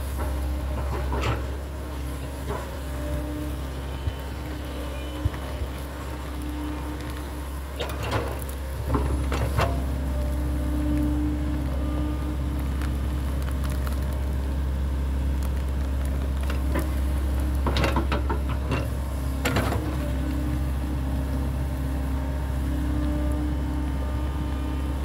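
SANY crawler excavator's diesel engine running steadily under load, with a hydraulic whine that wavers as the boom and bucket move and grows a little louder about nine seconds in. Several sharp knocks and cracks come through as the bucket works in the brush and debris.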